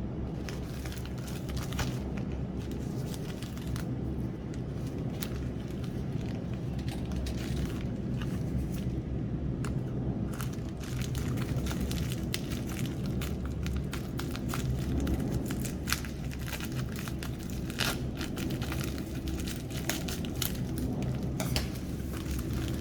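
Packaging being handled and opened: plastic and cardboard crinkling and tearing, with many short irregular clicks and rustles over a steady low hum.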